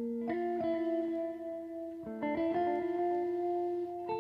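Background music: a melody of plucked notes, each one ringing on until the next, with new notes coming every half second or so.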